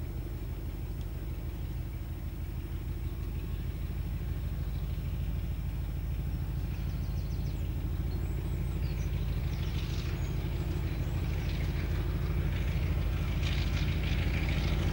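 BR Class 33 diesel-electric locomotive, its Sulzer eight-cylinder engine running under power with a steady low drone that grows louder as the train approaches. A higher rattling clatter of the train builds in the second half.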